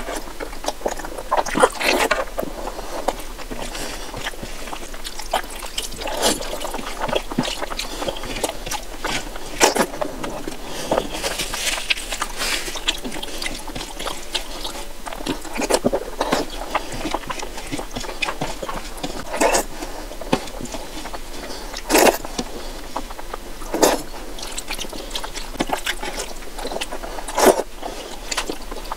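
Close-miked wet eating sounds: fingers squelching and scraping rice and curry together on a plate, and mouth-full chewing, as irregular short wet clicks and smacks.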